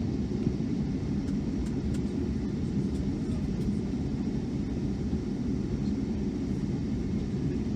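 Steady low rumble of a Boeing 757-200's engines and airframe, heard from inside the passenger cabin, holding level with no change in pitch.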